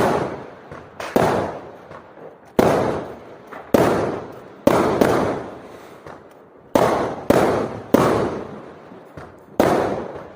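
Fireworks going off: about a dozen sharp bangs at irregular intervals, each trailing off in a long echo.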